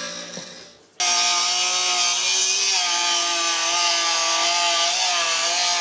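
Dremel-type rotary tool with a cut-off wheel cutting a slot into the end of a threaded steel leveler stud. It starts abruptly about a second in, after an earlier sound has faded out, and runs as a steady high whine and hiss whose pitch wavers slightly as the wheel bites.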